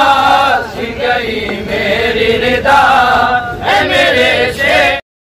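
Male voices chanting a noha, an Urdu mourning lament, in a group through microphones. The chant cuts off abruptly about five seconds in.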